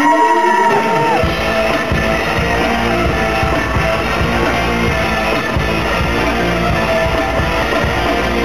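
Loud live concert dance music over the hall's sound system: a rising sweep gives way about a second in to a rock-style track with a steady drum beat, heavy bass and electric guitar.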